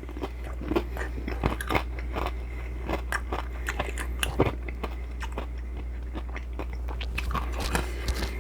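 Close-up mouth sounds of a person chewing and biting a Mexican shrimp cocktail: a run of wet smacks and crunchy clicks, over a steady low hum.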